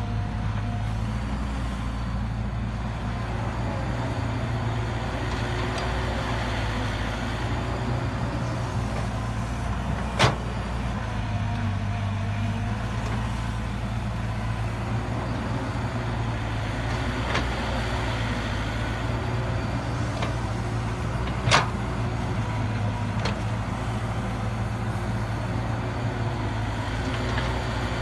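CAT 312B excavator's diesel engine running steadily under load as it digs soil and swings to load a dump truck, with its note rising a little at times. Two sharp knocks stand out, about ten and twenty-one seconds in.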